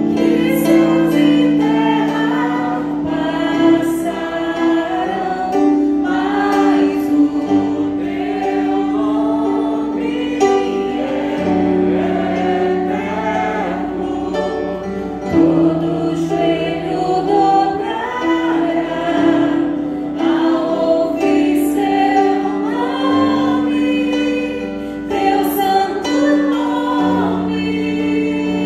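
A woman singing a worship song into a microphone, accompanied by an electronic keyboard holding long sustained chords.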